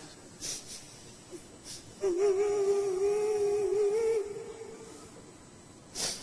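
A reciter's voice holding one long, slightly wavering note for about two seconds, a drawn-out vowel of Quran recitation (tajwid elongation). Short breathy sounds come before and after it.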